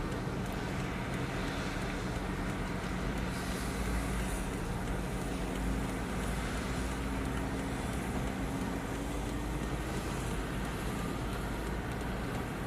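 Diesel engine of heavy construction machinery running steadily, its pitch drifting slightly up and down a few times.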